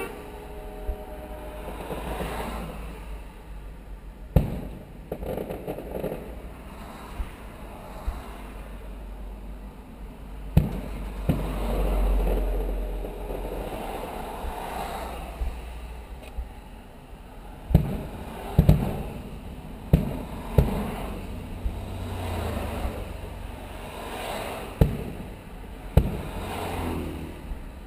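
Aerial fireworks shells bursting, a sharp boom every few seconds, then a quicker run of several booms about two-thirds of the way through, over a steady low rumble.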